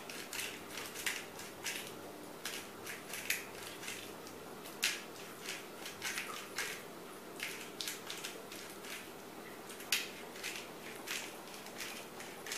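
Hand-twisted pepper mill grinding peppercorns: a string of short, gritty crunches at irregular intervals, the loudest about five seconds in and again about ten seconds in.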